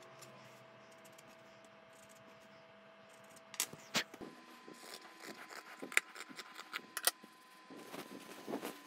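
Scissors cutting through dress-pant fabric: a run of sharp snips and clicks that begins about three and a half seconds in, after a quiet stretch of room tone.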